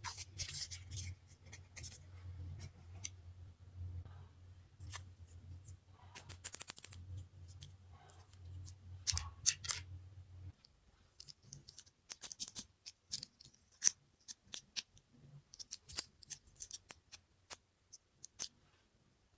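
Scissors snipping and plastic packaging being handled while unpacking a toy doctor set: irregular sharp snips, crinkles and small clicks. A low background hum stops about halfway through.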